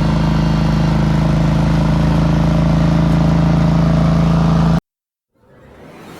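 Diesel engine of heavy paving equipment running steadily at a constant speed. It cuts off abruptly about five seconds in, and a faint sound fades in just before the end.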